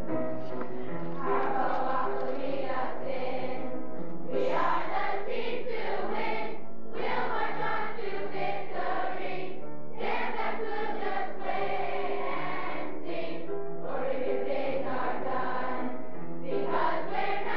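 A large group of campers singing a team song together as a choir, with keyboard accompaniment, in phrases a few seconds long.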